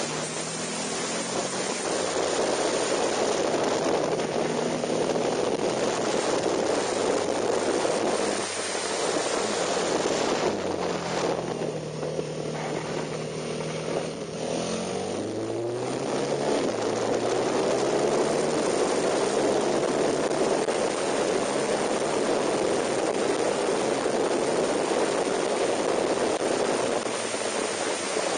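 KTM 990 Super Duke's V-twin engine under way at track speed, largely covered by heavy wind rush on the bike-mounted microphone. About halfway through, the wind eases while the engine note falls and then climbs again as the bike slows through a corner and accelerates out.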